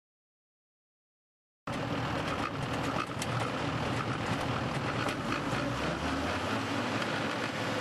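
Silence for the first second and a half or so, then a tractor-driven Valentini FR stone crusher running steadily as it grinds through rocks, with a few sharp knocks of stone soon after the sound starts, over the continuous din of the machine and tractor engine.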